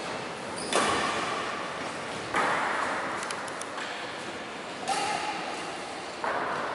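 Badminton rackets striking a shuttlecock four times in a rally, each sharp hit ringing on in the echo of a large hall.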